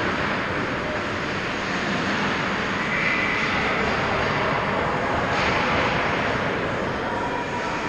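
Steady, even rush of indoor ice-rink background noise, with no close-up skating or puck sounds.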